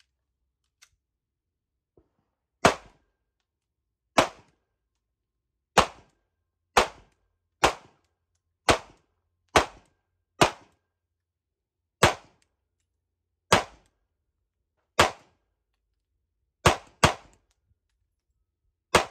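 Sig Sauer P365 XL 9mm pistol fired as fourteen single shots, spaced about a second or a second and a half apart, with a quick pair near the end. Two faint clicks come before the first shot.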